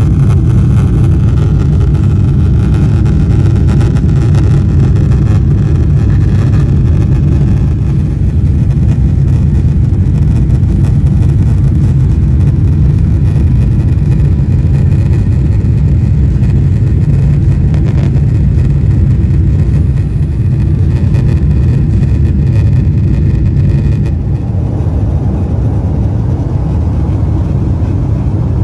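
Boeing 777-300 airliner cabin noise in the climb after take-off: a loud, steady low rumble of jet engines and airflow. It drops slightly in level and changes character near the end.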